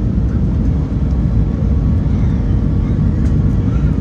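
Steady low rumble of an Airbus A319 airliner, with a faint steady hum in it.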